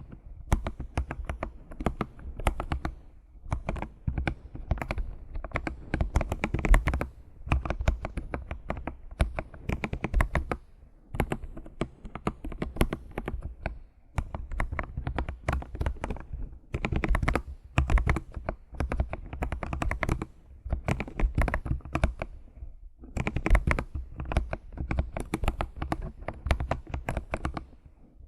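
Typing on a computer keyboard: rapid clacking keystrokes in runs of a few seconds with short pauses between them.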